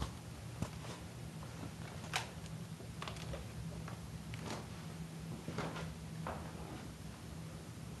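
Scattered light knocks and clicks, about six at uneven intervals, from someone moving about a small room, over a steady low hum.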